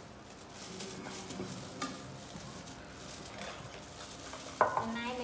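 Thin plastic bag rustling and crinkling as a young macaque paws and picks at it in a bowl. A voice starts abruptly near the end.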